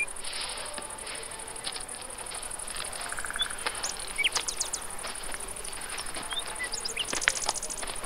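Forest ambience: a steady high-pitched chirring of insects, with a few short bird chirps and a brief buzzy trill about three seconds in. Faint rustling steps on dry leaf litter run through the second half.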